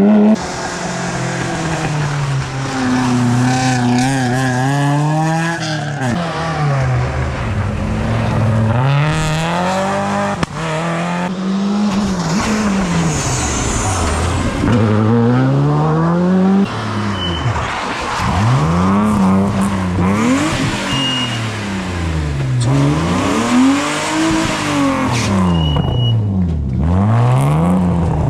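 Rally car engines revving hard, pitch climbing and dropping again and again with the gear changes, as cars pass one after another on a rally stage.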